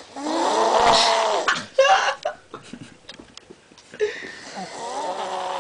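A man snoring heavily in his sleep: two long snores about four seconds apart, each lasting one and a half to two seconds.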